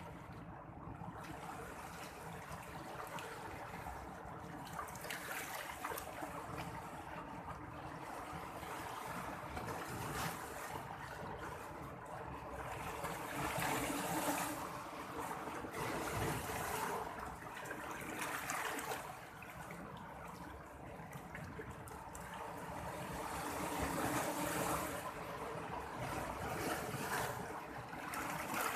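Sea water washing and trickling in a continuous rush, swelling louder about halfway through and again in the last few seconds, as waves wash in.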